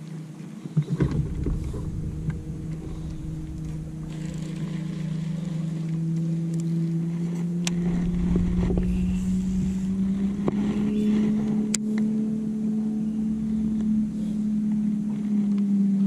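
Boat motor running with a steady low hum that slowly rises in pitch and grows louder, over a low rumble. A few knocks about a second in.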